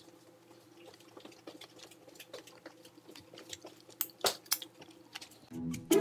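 A person chewing food: faint, irregular wet clicks and ticks of the mouth, a few louder about four seconds in, over a steady low room hum. Music with plucked and bowed low strings comes in just before the end.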